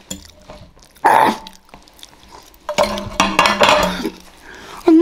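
A metal fork scraping and clinking against a plate as the last bits of food are gathered up, with one loud scrape about a second in. A longer, louder mouth noise from eating follows near three seconds in.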